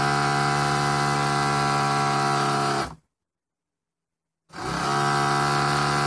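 Small electric motor spinning a homemade Gerard Morin pump, running with a steady pitched hum. The sound cuts out completely about three seconds in and comes back about a second and a half later.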